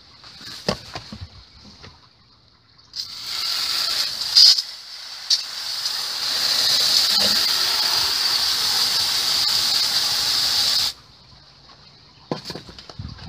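Garden hose spray nozzle spraying water onto the compost-and-straw bedding of a worm bin. The hiss starts about three seconds in and cuts off suddenly near the end, after a few light knocks.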